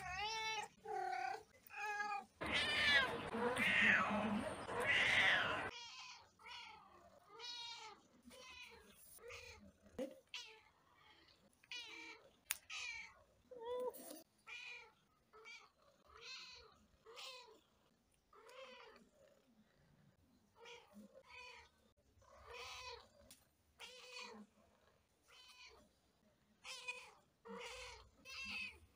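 Domestic cats meowing, one short meow after another at about one a second, with a louder, longer drawn-out call a few seconds in.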